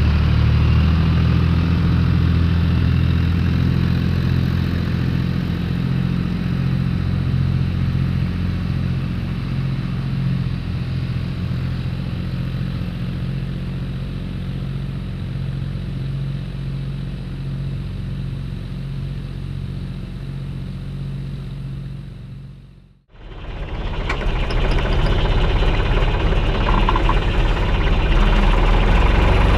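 Tractor diesel engine running steadily under load while ploughing. About three-quarters of the way through, the sound drops briefly to near silence and then comes back.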